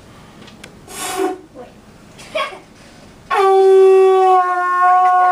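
Conch shell blown as a horn: one loud, held note of about two seconds with a slight dip in pitch partway through, starting about three seconds in.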